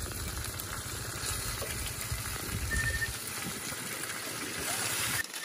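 Meat sizzling in a frying pan on a portable camp stove, a steady crackling hiss that stops abruptly near the end.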